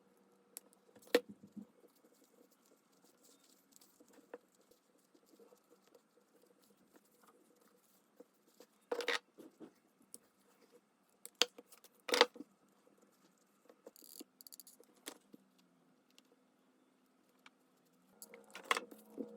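Sparse taps, clicks and light knocks from craft materials being handled on a desk, with a few louder knocks spread through and a brief hiss in the middle.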